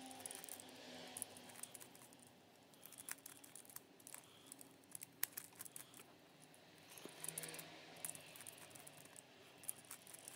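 Faint clicking and rattling of a plastic Timur Gear puzzle cube as its faces and gears are turned by hand, with irregular small clicks throughout.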